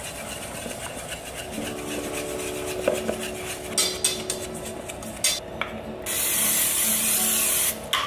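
A wire whisk scraping and rubbing through a dry, crumbly almond-flour crust mix in a stainless steel bowl, with a few sharp knocks against the metal. About six seconds in, an aerosol can of cooking spray hisses in one steady blast lasting under two seconds.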